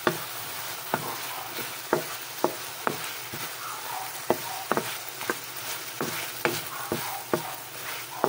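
Chicken pieces sizzling as they are sautéed in a pan, with a steady frying hiss. A wooden spatula stirs them, knocking and scraping against the pan about twice a second.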